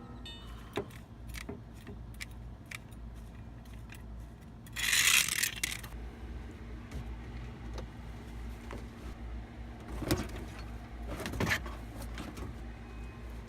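Light metallic clinks and rattles of car tools being handled, with a burst of rustling noise lasting about a second, about five seconds in, and two sharper knocks, at about ten and eleven and a half seconds.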